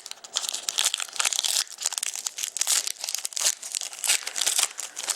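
Crinkling and tearing of a trading card pack wrapper as a pack of hockey cards is torn open and handled: a dense run of irregular crackles.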